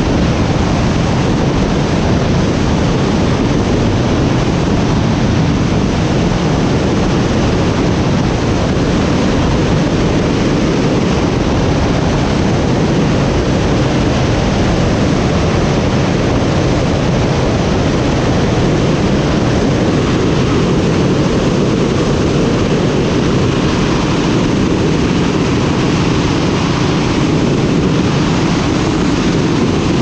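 Steady, loud rushing noise of an aircraft in flight, engine and airflow noise blended together, with no change in the whole stretch.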